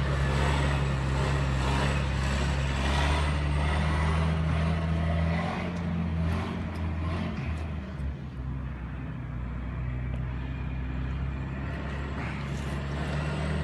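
Vehicle engines idling with a steady low drone. About six seconds in, the sound wavers and drops, then settles into a quieter, even hum.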